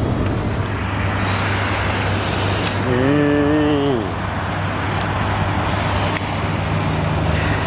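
Hino 268 box truck's diesel engine running with a steady low hum and road noise. A short voice-like sound, pitched and bending, comes about three seconds in.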